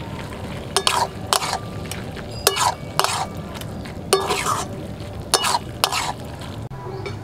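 A flat metal spatula scraping and clinking against a metal kadai while stirring a thick, nearly dry curry of banana stem, potato and chana dal. It comes in about four bouts of short scrapes and clinks, mixing in the ghee and garam masala just stirred in at the end of cooking.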